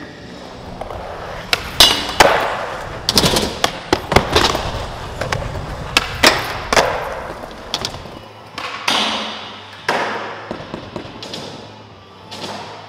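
Skateboards rolling on concrete, with a string of sharp tail pops, landing slaps and board slides on a ledge, ringing in a large hall.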